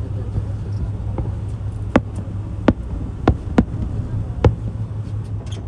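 Fireworks going off: five sharp pops over about two and a half seconds, starting about two seconds in, over a steady low hum.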